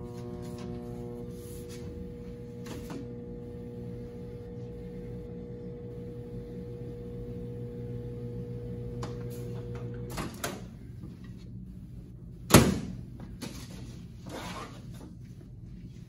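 GE countertop microwave oven running with a steady hum while it heats a marshmallow s'more, stopping about ten seconds in. A small click follows, then a loud sharp clack of the microwave door a couple of seconds later, with a few lighter knocks.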